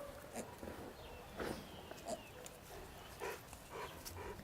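A few short animal sounds, scattered irregularly, from pets and farm animals together.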